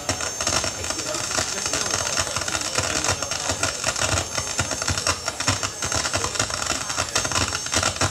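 Live experimental electronic noise performance: dense crackling noise with uneven low thuds and a steady high hiss.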